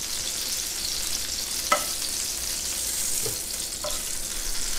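Oil sizzling in a cast iron skillet where tomatoes have been charring, a steady hiss, with a few sharp clicks, the loudest nearly two seconds in.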